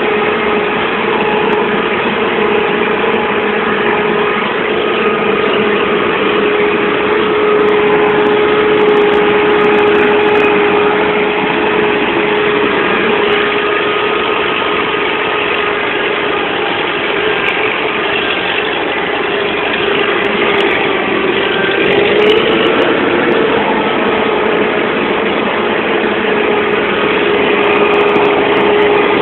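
UTB Universal U-650 tractor's four-cylinder diesel engine running steadily while ploughing, heard from the cab, with a brief dip and recovery in pitch about 21 seconds in.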